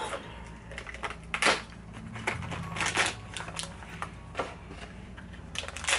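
Hands unwrapping a blind-box toy's plastic packaging: short, irregular crinkles and crackles of the wrapper being opened and handled.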